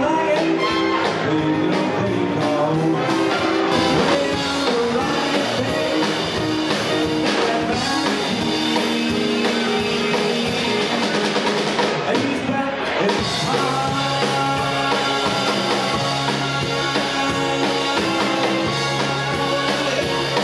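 An eight-piece swing band playing live, with a drum kit keeping the beat and a singer's voice over the band. The music briefly thins out a little past the middle before the next phrase comes in.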